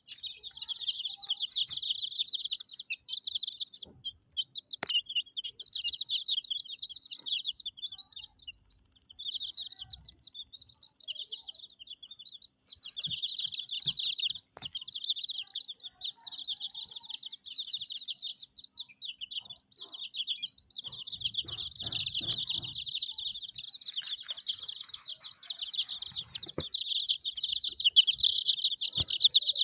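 A group of chicks peeping: many short, high-pitched cheeps overlapping almost without a break, thinning briefly a few times, with a few sharp knocks in between.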